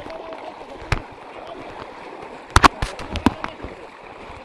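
Handling noise from the recording phone: a sharp knock about a second in, then a quick clatter of four or five knocks between about two and a half and three and a quarter seconds in, over a steady low background.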